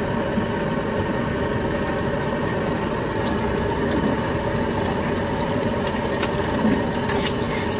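Steady hum of a running motor, with a low rumble beneath and a few light clicks near the end.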